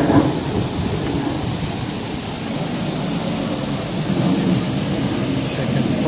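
Small waterfall splashing onto the rocks below: a steady rush of falling water.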